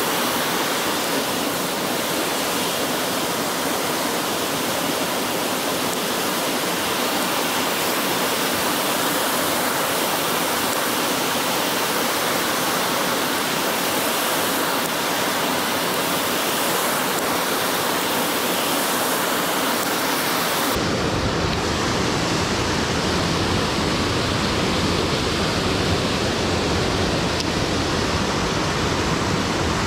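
Mountain creek water rushing steadily over rocks. About two-thirds of the way through, the sound abruptly turns deeper and duller, with a low rumble added and the hiss softened.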